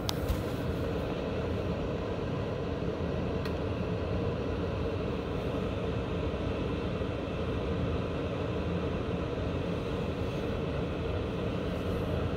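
Hotel room air conditioner running with a steady hum and whir, heard right up against the unit. A brief knock sounds in the first moment.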